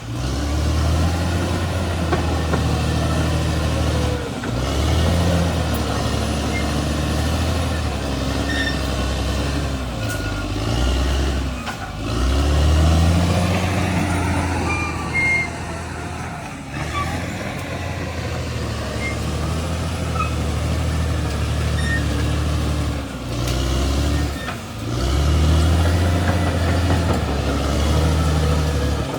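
Caterpillar D6R XL bulldozer's diesel engine running hard while it works, its drone rising and falling with the load, with a few abrupt breaks.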